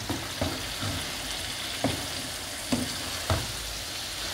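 Egg sauce frying in groundnut oil in a pot: a steady sizzle, with a few sharp clicks scattered through it.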